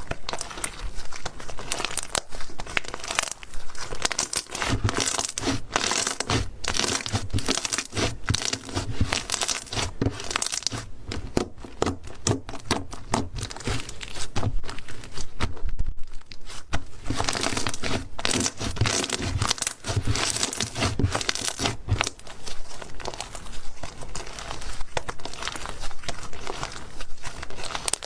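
Slime being squeezed and stretched by hand, a dense run of crackling and clicking pops as air pockets in it burst, with a short lull about halfway through.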